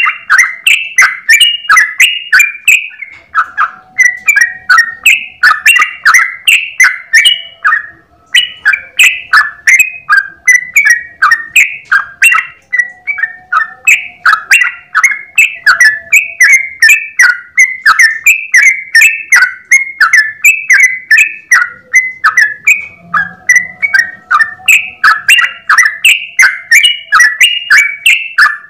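Yellow-vented bulbul (trucukan) singing a long, nearly unbroken run of rapid bubbling phrases, several a second, the 'ropel' song of a bird in full voice. There is one short break about eight seconds in.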